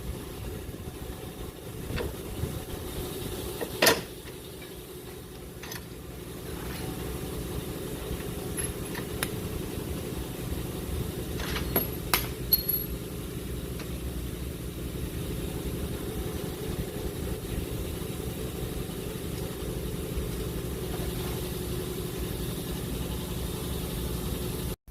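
A steady mechanical drone, like an engine or motor running, with several sharp metallic clicks and knocks from hand tools during the bolt-up of a front lower control arm.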